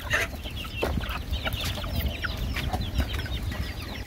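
A flock of chickens with young chicks clucking and peeping: many short, high calls scattered close together, with a few soft clicks.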